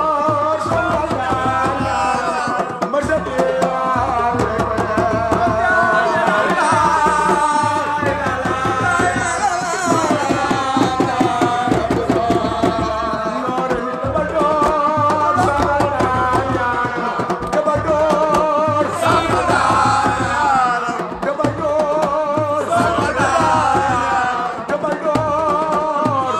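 Music: a song with singing over hand drums and percussion.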